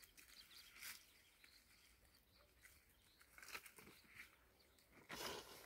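Near silence, broken by a few faint rustles and crackles of dry undergrowth, with a slightly louder rustle near the end.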